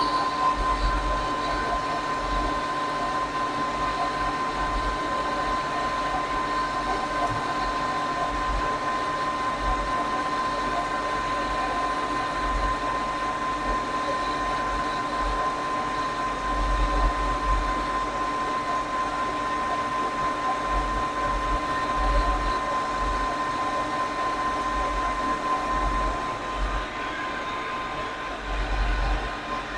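Conventional lathe running through a turning pass that takes 1 mm off the workpiece's diameter: a steady machine hum with a constant high whine over an uneven low rumble.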